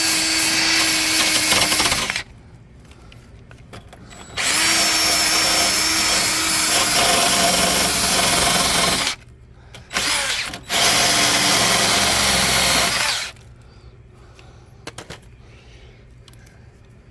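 Power wire brush spinning against the rusted sheet-metal tail panel in four runs, the longest about four and a half seconds, with short pauses between, scrubbing rust off rotted metal. Near the end come a few small clicks.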